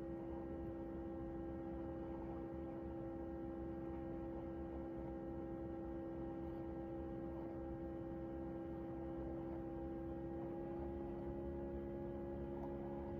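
Steady electrical hum made of several fixed tones, unchanging throughout.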